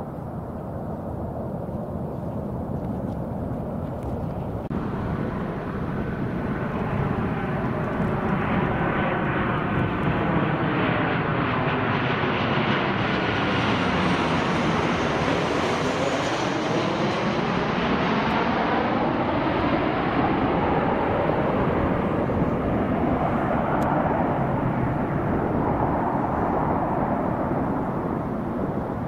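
Boeing 737-800 jet airliner with its CFM56 engines running, heard first as a steady distant rumble. It then comes low overhead on approach: a rising rush and whine that peaks as it passes and eases off. The whoosh sweeps down in pitch as it comes over and back up as it goes away.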